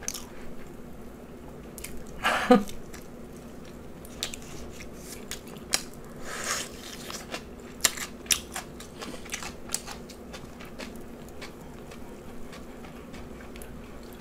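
Close-miked chewing and mouth sounds of eating: small wet clicks and smacks scattered throughout. There is a short louder noisy sound about two seconds in and a longer hiss around six and a half seconds.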